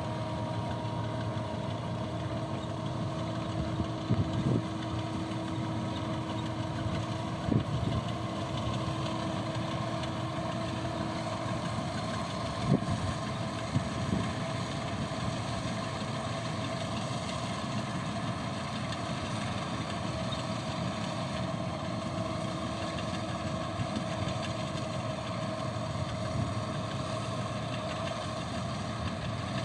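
A steady engine or motor drone with a few held tones, interrupted now and then by short knocks.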